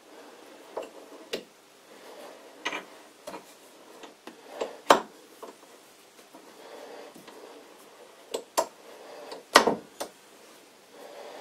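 Steel parts of an old lathe tailstock clicking and knocking as the hub and its lever handle are worked by hand, with faint rubbing between the clicks. The two loudest knocks come about five seconds in and near ten seconds in.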